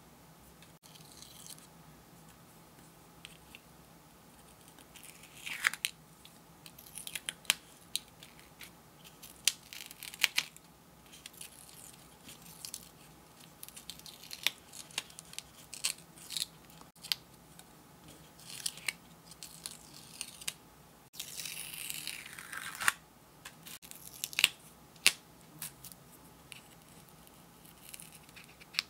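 A pointed craft pick picking at and peeling the paper backing off a self-adhesive sand-painting sheet: scattered sharp scratches and ticks with short tearing peels, and one longer peel about three quarters of the way through.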